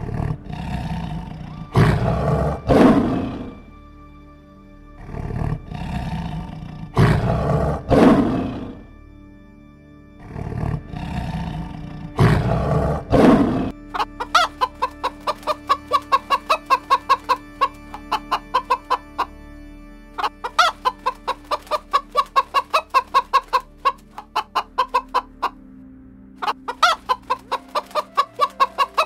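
A lion roaring in three long bouts, each building to loud, deep grunts. About fourteen seconds in it gives way to a chicken clucking rapidly, about three clucks a second, with short breaks.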